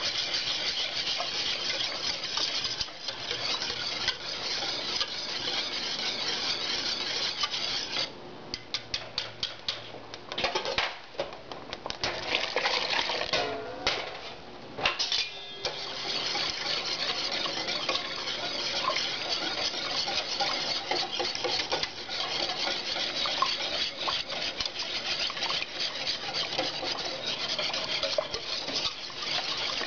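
Wire whisk stirring thickening gravy in a stainless steel pot, its wires scraping and clicking fast against the metal sides and bottom. The whisking slows to scattered clicks with short breaks about a third of the way through, then picks up again.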